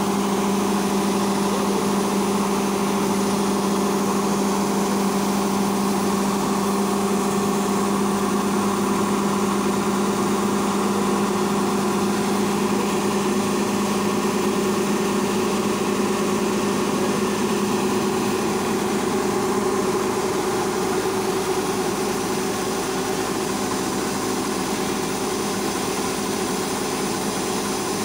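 Rice combine harvester's engine and unloading auger running steadily, a continuous low droning hum, while threshed rice grain streams out of the auger spout.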